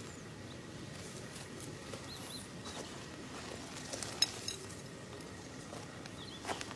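Scattered sharp clicks and ticks over a faint steady background, the loudest about four seconds in, with a few faint high chirps.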